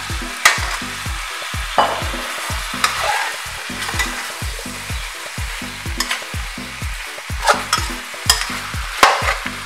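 Chicken, pork chop and longaniza sizzling as they sauté in oil in an aluminium caldero, with a metal spoon stirring through the meat and clinking sharply against the pot about once a second.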